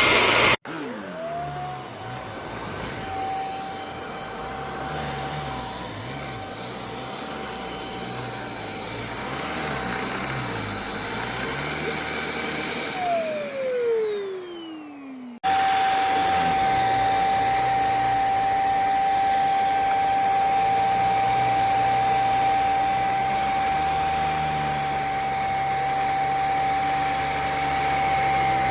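JPHYLL mattress vacuum cleaner's motor spinning up with a rising whine, running with a steady high whine, then winding down with a falling whine about halfway through. After a sudden cut it is running again, louder, with the same steady high whine.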